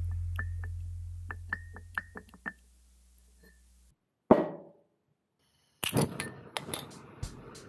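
Fading background music, then light metallic clinks as steel axle swivel-housing parts are handled, and one sharp knock about four seconds in, the loudest sound. From about six seconds a gas torch is lit and flares, a rough hiss with crackling clicks.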